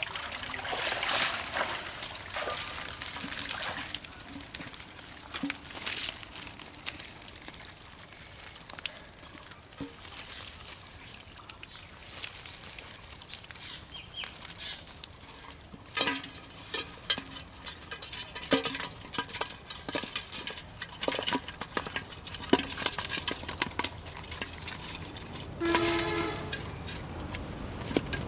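A fishing net is drawn out of shallow canal water with splashing. Then come the crackle and rustle of wet netting and the patter of small fish flapping on mud as they are picked out by hand.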